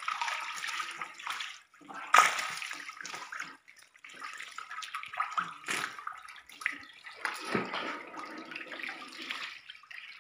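Fish thrashing in shallow water, splashing and sloshing in irregular bursts with brief pauses; the sharpest splash comes about two seconds in.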